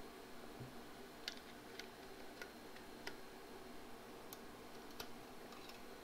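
About six faint, sharp clicks, spread out, of small metal pistol parts being handled as the slide of a Phoenix Arms HP22A is worked back onto the frame against the hammer spring.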